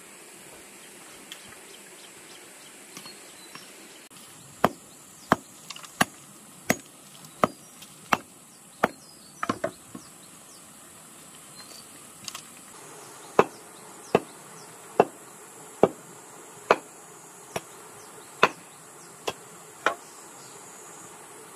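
Sharp wooden knocks, about one every three-quarters of a second, from pounding at the base of an upright wooden post to set it in the ground. There are two runs of about nine strokes with a pause between them, over a steady high buzz of insects.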